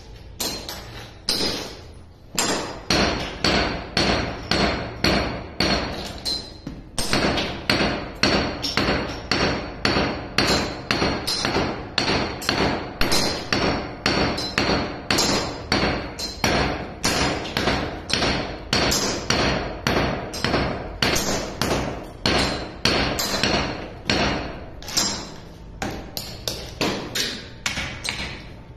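Claw hammer striking a chisel held against a concrete floor, chipping the surface in a steady run of sharp blows about two a second, with a couple of short pauses.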